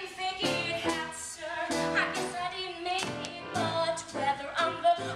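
Female voices singing a show tune over musical accompaniment.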